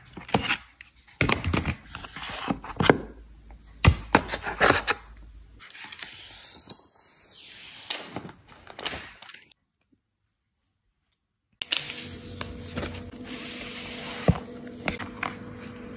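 Unboxing handling sounds from an iPad Pro's cardboard box, paper insert and plastic-wrapped tablet: scattered rustles, scrapes and light taps. The sound cuts out completely for about two seconds just past the middle, then the handling rustles and taps resume.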